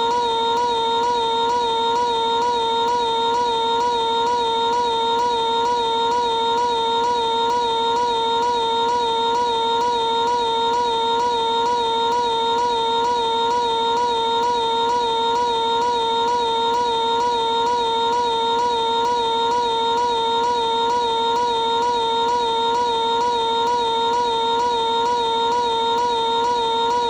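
Piglet's high-pitched cartoon voice screaming, stretched into one unbroken held tone that wavers rapidly and evenly, looped at a constant level.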